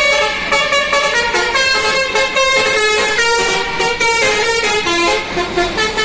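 Bus telolet horn, a multi-tone musical air horn, playing a quick tune of chiming notes that step up and down in pitch.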